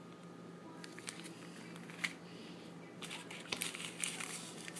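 Small clear plastic bag of nail-art sand crinkling faintly in the hand. There is a sharp tick about two seconds in, and denser rustling as the bag is handled near the end.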